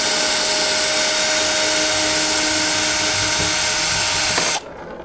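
Power drill running steadily as it backs a screw out of a kayak hatch's mounting rim, then stopping abruptly near the end.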